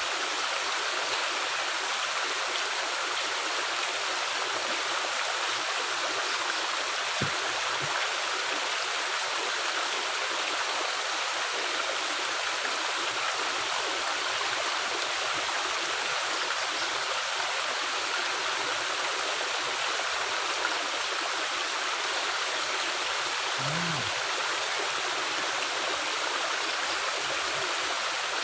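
Steady rush of water flowing through a culvert, an even unbroken sound, with a faint click about seven seconds in.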